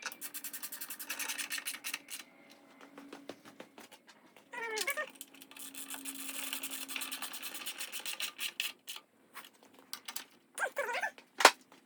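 Ratchet wrench clicking in quick runs as the fuel tank's mounting bolts are run in. A cat meows about five seconds in and again near the end, and a sharp click comes just before the end.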